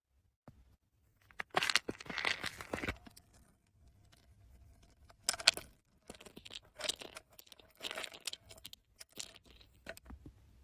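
Pills being taken out of their packaging: crinkly, crackling handling noise in several short bursts with sharp clicks, the loudest a single sharp pop about five and a half seconds in.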